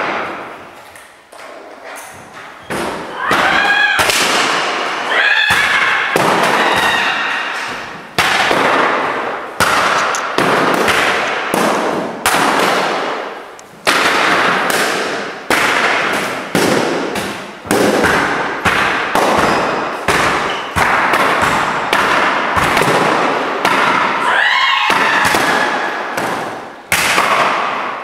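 Electric guitars, some still plugged in by their cables, being smashed against the floor again and again: loud crashes about once a second, each ringing out, with a few short wavering high tones among them.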